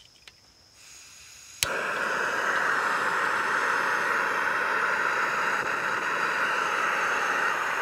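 Fire-Maple Fixed Star canister gas stove. The gas hisses faintly with the valve opened, then about a second and a half in there is a sharp click and the burner lights. It runs on with a steady, loud rushing hiss.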